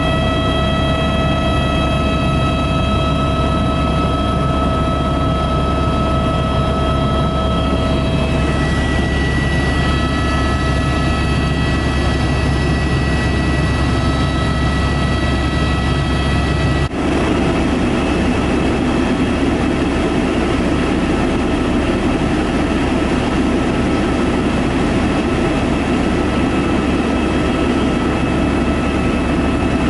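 Helicopter in flight heard from inside the cabin: a loud, steady low drone of rotor and engine with a constant high whine over it. About 17 seconds in, the sound cuts abruptly and resumes with a slightly different balance of tones.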